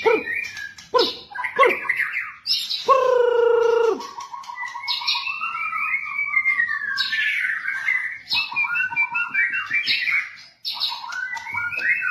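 White-rumped shama (murai batu) singing a varied song: sharp whistled notes, a harsh buzzy call about three seconds in, then long gliding whistles and quick warbled phrases.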